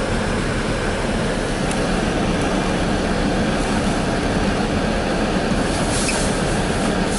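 Diesel engines of snow-removal machinery, a dump truck and front loader, running steadily at close range.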